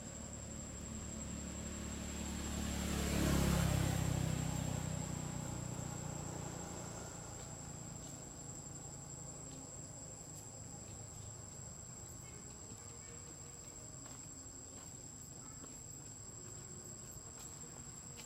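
Steady, high-pitched insect drone, with a low rumble that swells to a peak about three and a half seconds in and fades away by about seven seconds.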